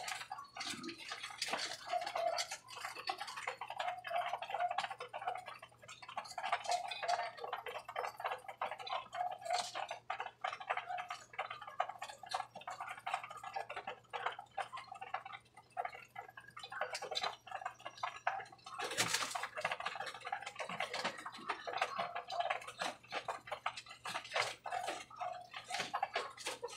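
Pigeons pecking at feed: a dense, irregular run of quick beak clicks and taps, with one sharper knock about two-thirds of the way through.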